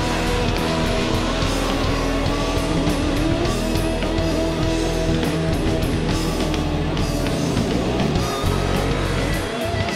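Rock music driven by electric guitar.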